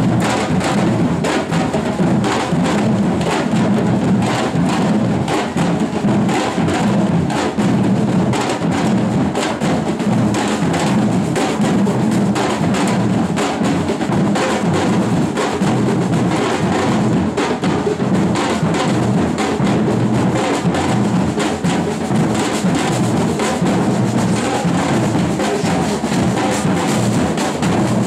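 A street percussion band drumming on large metal-shelled drums with sticks: a dense, steady, driving rhythm of deep drum beats.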